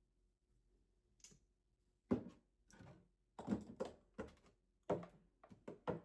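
Handling noises from a hair-product bottle: a faint tap about a second in, then a run of sharp knocks and taps through the rest.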